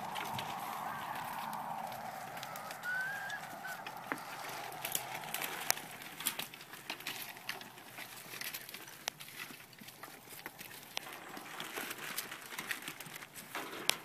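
A goat's long, wavering bleat fading out a couple of seconds in, followed by scattered light clicks and rustles of movement.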